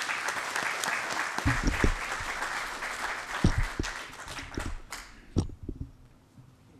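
Audience applauding, dying away about five seconds in. Several low thuds come from the microphone stand being handled.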